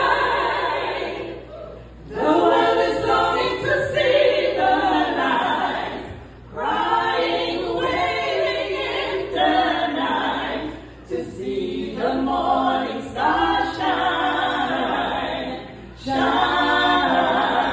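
Female vocal quartet singing an old song together in harmony, unaccompanied, through hand-held microphones and a PA. They sing in phrases of about four seconds with short breaks between.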